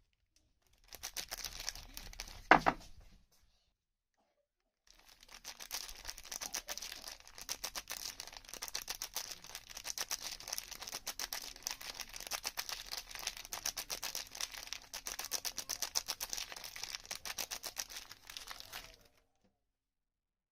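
Soap packaging being unwrapped: a short spell of crinkling with one sharp tear, then, after a pause, a long stretch of fast, dense crinkling and tearing that stops shortly before the end.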